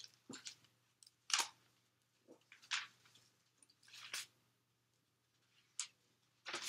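Soft, scattered rustles and clicks of paper notes being handled, about eight short sounds spread out with quiet gaps between them, over a faint steady electrical hum.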